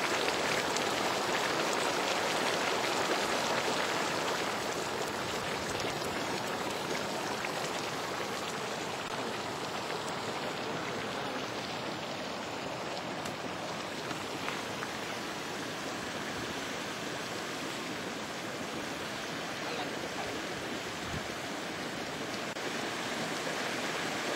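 Steam jetting from a volcanic fumarole: a steady rushing hiss, a little louder at the start and again near the end.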